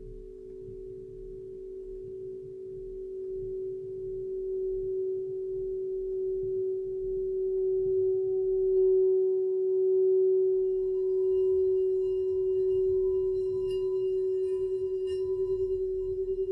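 Clear crystal singing bowl sung by rubbing a mallet around its rim: one steady ringing tone that swells gradually over the first half and then holds. About halfway in, faint higher overtones join, and near the end the tone begins to waver.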